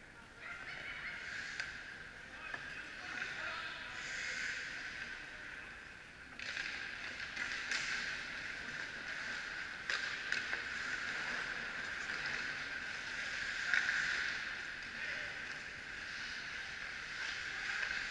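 Ice hockey skate blades scraping and swishing on the ice in uneven swells, with a few sharp clicks of sticks and puck.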